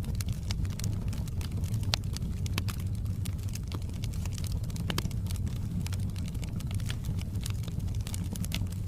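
Wood fire burning in a fireplace: a steady low rumble of flames with frequent sharp crackles and pops, a few louder pops about two and five seconds in.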